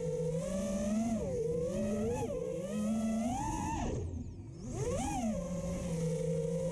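FPV racing quadcopter's brushless motors whining, the pitch rising and falling as the throttle is worked; about four seconds in the whine drops away almost to nothing as the throttle is cut, then swoops back up.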